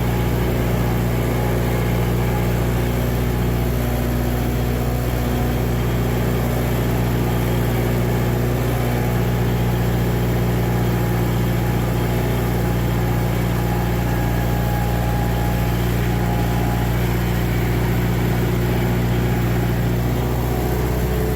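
John Deere tractor engine running steadily at a constant speed, with no revving.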